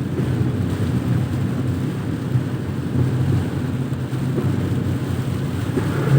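Steady low rumble of a vehicle being driven on a rain-soaked road: engine and tyre noise.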